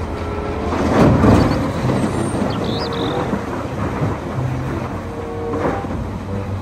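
Diesel engines running steadily while a loader bucket tips a load of dark earth into a steel dump-truck bed. The material pours in with a heavy rushing rumble that is loudest about a second in and swells again near the end.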